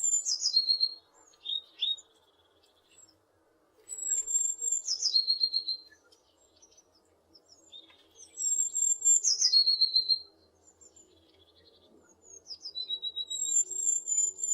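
A tit singing a repeated song phrase, about every four seconds. Each phrase opens with a few very high notes that step down into a quicker, lower trill, and there is one short lower call about two seconds in.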